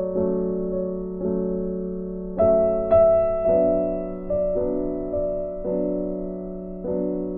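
Background piano music: slow chords, each struck and left to fade, a new one about every second.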